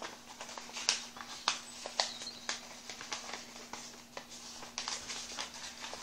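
Square of white paper being folded and creased by hand close to the microphone: an irregular run of crisp crackles and taps, a few of them sharp and loud. A faint steady hum runs underneath.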